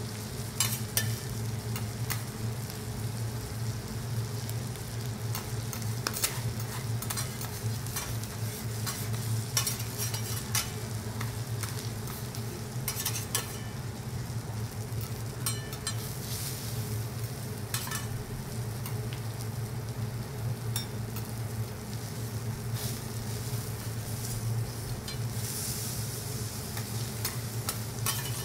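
Food sizzling on a teppanyaki steel griddle, with frequent sharp clicks and scrapes of metal spatulas on the plate, over a steady low hum.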